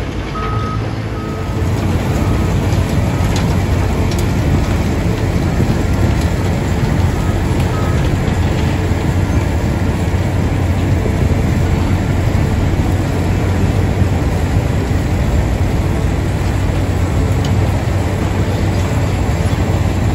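Wirtgen cold milling machine running with a steady low drone as its conveyor drops milled pavement into a dump truck's bed. It gets louder about a second and a half in. A reversing alarm beeps repeatedly through the first half.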